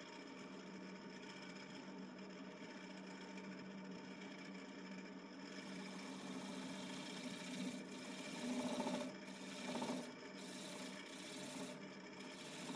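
Wood lathe running steadily while a turning tool scrapes and cuts the spinning western red cedar, with two louder cuts a little past the middle.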